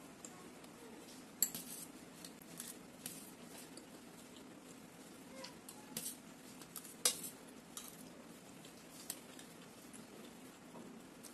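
A spoon clinking and scraping against a stainless steel plate while scooping pasta, in faint scattered clicks. The sharpest clink comes about seven seconds in.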